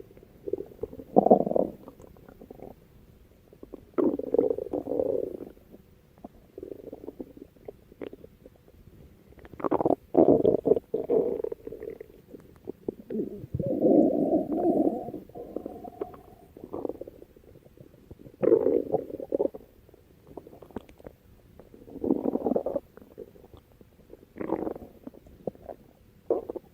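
A person's stomach growling and gurgling in irregular bursts a few seconds apart, the longest and loudest running a second or two around the middle.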